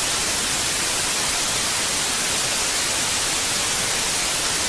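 Steady broadcast static, an even white-noise hiss strongest in the high range: the sound of a dead station signal after the emergency broadcast is cut off mid-sentence.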